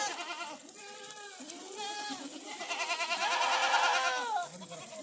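Several goats bleating, their calls overlapping, loudest in a longer stretch of calling from about halfway to near the end.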